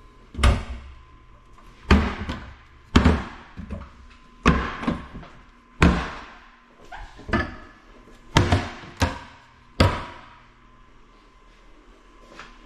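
Cabinet doors being opened and shut, about nine separate knocks over ten seconds, each a short sharp bang that dies away quickly.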